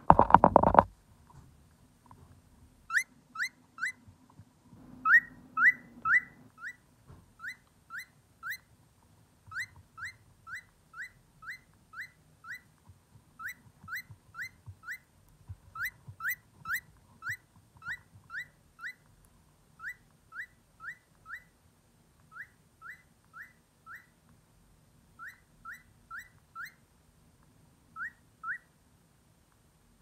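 Cockatiel chirping: a long series of short, rising whistled chirps, about two a second in runs of three to five. At the start a loud, brief rustle and bump as the bird brushes against the microphone.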